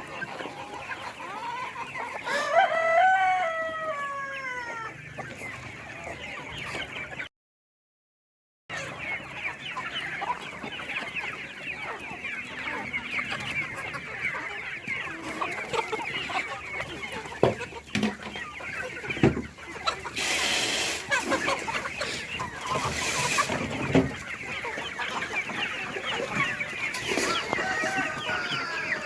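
A flock of chickens clucking continuously, with a rooster crowing once, the call falling in pitch at the end, about three seconds in. The sound cuts out completely for about a second and a half near the quarter mark, then the clucking resumes.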